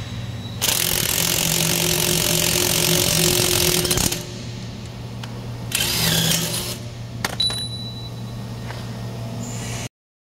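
Shop machinery running with a steady low hum, broken by two loud stretches of harsh noise: one about three and a half seconds long starting under a second in, and a shorter one about six seconds in. A few sharp clicks follow, and the sound cuts off suddenly near the end.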